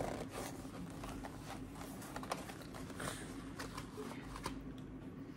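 Light handling noises, scattered soft clicks and rustles, over a faint steady hum.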